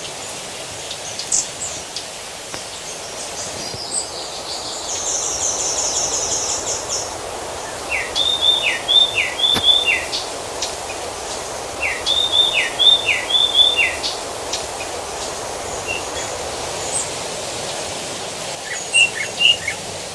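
Songbirds singing over a steady rush of irrigation water: a high, fast trill, then twice a phrase of four quick repeated notes, and a short burst of notes near the end.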